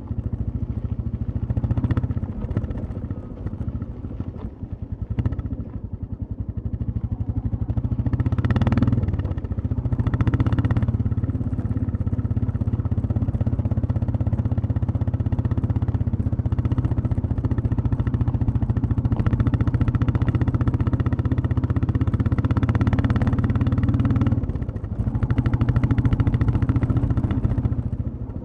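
Royal Enfield Classic 350 single-cylinder engine and exhaust running under way. It eases off a few seconds in, surges briefly twice around the ninth and eleventh seconds, then holds a long steady cruise. It dips once more near the end before pulling again.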